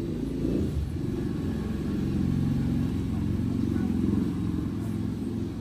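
A steady low mechanical rumble, swelling slightly a couple of seconds in.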